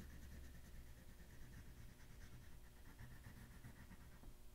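Faint scratching of an oil pastel shading on paper: a steady run of small strokes over a low room hum.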